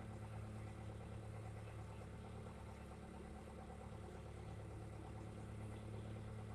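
Backhoe engine running steadily at idle, a low even drone.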